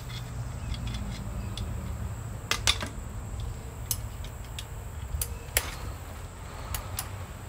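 Hand tools clinking and tapping on metal engine parts: scattered sharp clicks, with louder knocks about two and a half seconds in and again near the middle, over a steady low hum.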